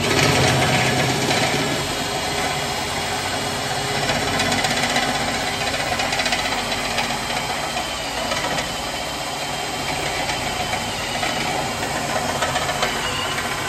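Cordless impact wrench hammering steadily and without a break, a dense mechanical rattle.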